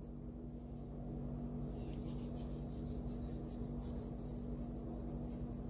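Faint rubbing and fine ticking of fingers sprinkling a pinch of salt over a mound of flour, over a steady low hum.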